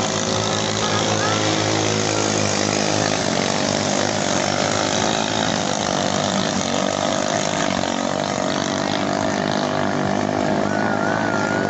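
Small single-cylinder ketinting racing-boat engines running flat out, a steady, high-revving, chainsaw-like drone.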